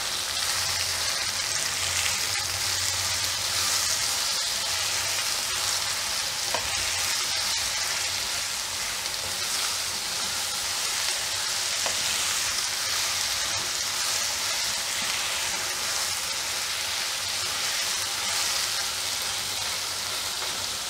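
Sliced ridge gourd sizzling in hot oil in a nonstick pan as it is stirred with a silicone spatula: a steady frying hiss.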